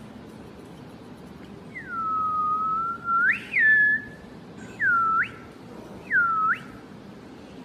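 A person whistling: one long, level whistle that flicks upward at the end, followed by three short swooping whistles that dip and rise again.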